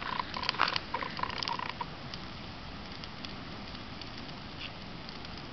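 Large brush burn pile burning: crackling and popping of burning brush over a steady rush, the pops thickest in the first two seconds, with a brief broken squeal near the start.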